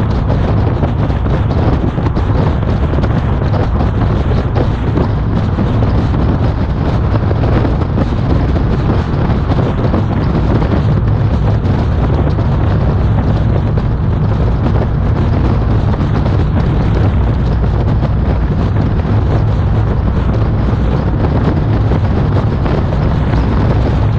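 Steady wind buffeting on a car-bonnet-mounted action camera's microphone while driving at road speed, a loud deep rumble mixed with road and engine noise.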